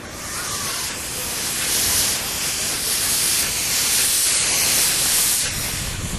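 Steam locomotive on a 15-inch gauge miniature railway releasing steam: a loud, steady hiss that starts abruptly and stops after about six seconds.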